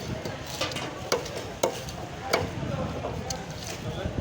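A knife striking a cutting board as fish is cut: about six sharp knocks at uneven intervals over a steady noisy background.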